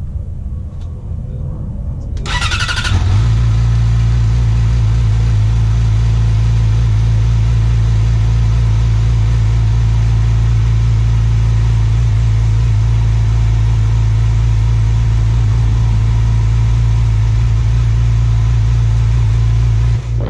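A 2016 Yamaha R6's inline-four engine on its stock exhaust, cold-started: the starter cranks and the engine catches about two seconds in, then idles steadily.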